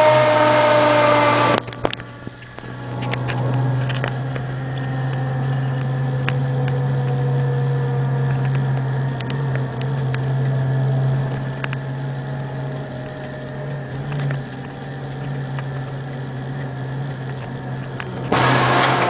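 Fire engine's siren sounding loud at first and cut off suddenly about two seconds in. The truck's engine then drones steadily in the cab while a faint siren tone slowly falls away. The siren comes back on loud near the end.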